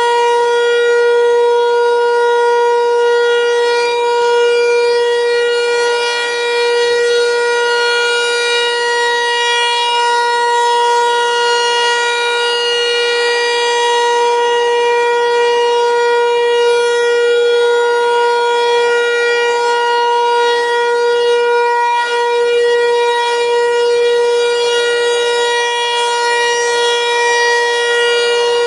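ASC T-128 rotating electromechanical outdoor warning siren sounding a steady tone, held at one pitch with slight swells and dips in loudness. It is the scheduled monthly siren test.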